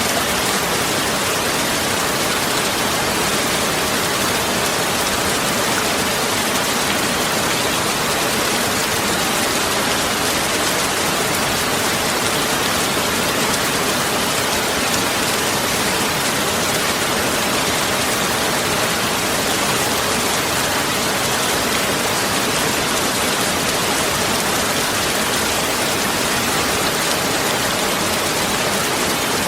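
Heavy rain falling steadily, a dense even hiss of many drops with no let-up.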